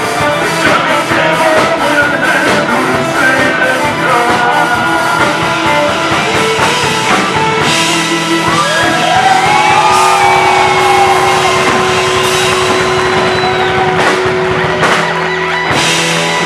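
Live rock band playing at full volume: electric guitars over bass and a drum kit, with sliding bent notes and a long held note around the middle.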